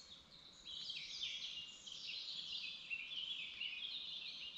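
Many birds calling at once close by: a dense, high-pitched chatter of short overlapping chirps and falling notes, growing louder under a second in.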